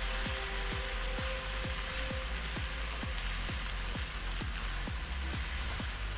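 Goat meat, onions and scotch bonnet peppers sizzling in a hot pan as they are stirred with a spatula, over background music with a steady beat.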